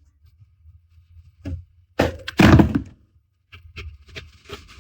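Garlic being peeled by hand, its dry skin crackling crisply: a single knock about one and a half seconds in, a louder stretch of cracking around two seconds in, and small dry clicks near the end.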